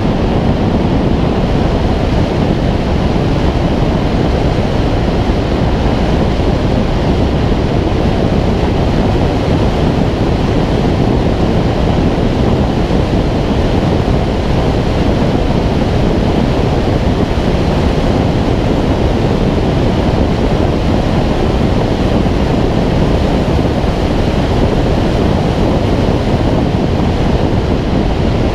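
Loud, steady wind noise from the airflow over a wing-mounted action camera on a Schweizer 2-33 glider in flight, with no engine or other sound.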